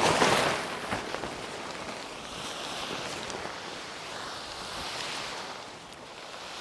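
Large hot tent's fabric rustling and swishing as it is shaken out and pulled across dry grass. It is loudest right at the start, with softer swells of rustling after.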